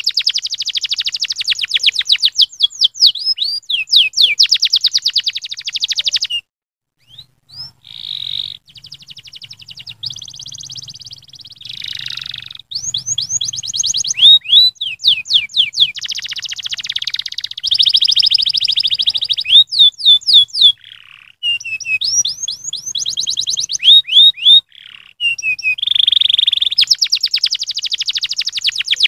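Domestic canary singing a long song of fast trills and rolling runs of quickly repeated sweeping notes. The song breaks off briefly about six seconds in and again near twenty-one seconds.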